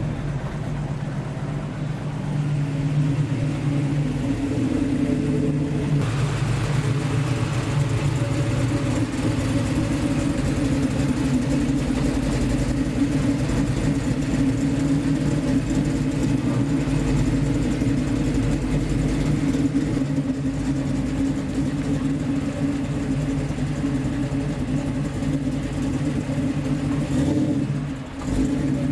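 Classic American muscle car's V8 engine idling steadily with a deep, even note, its character shifting slightly about six seconds in.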